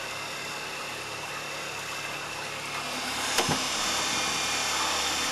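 A 1.5 hp electric motor driving the gearbox and propeller of an old 2.5 hp outboard's lower unit, running steadily with a hum and whine over the wash of the water, growing louder about three seconds in. A single sharp knock sounds partway through.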